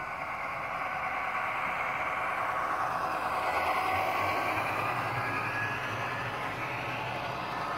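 HO-scale model freight train rolling past: the steady running noise of covered hopper cars' wheels on the track, swelling slightly about halfway through, with the ESU LokSound decoder's recorded EMD 16-645F3B diesel prime mover running through the locomotive's small speaker.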